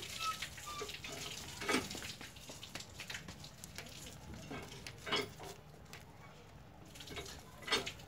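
Scissors snipping through folded colour paper: a few short, crisp cuts spaced a second or more apart.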